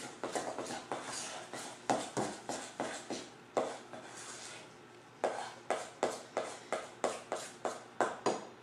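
A utensil stirring pancake batter in a stainless steel bowl, clicking and scraping against the metal in a steady rhythm of about two to three strokes a second, with a brief lull in the middle.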